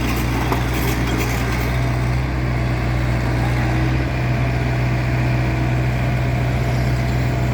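A heavy machine's engine running steadily at an unchanging pitch, a low, even drone.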